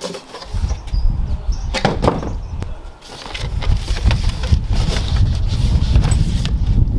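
Cardboard packaging handled as a box lid and inner divider are lifted out: rustling and scraping with a few sharp knocks. A low rumble of wind on the microphone runs under it, dropping away briefly around the middle.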